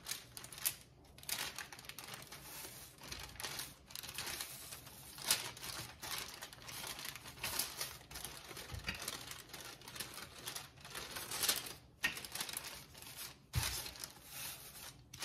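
Parchment paper crinkling and rustling as sugar cookie dough is rolled out on it, in an irregular run of small crackles.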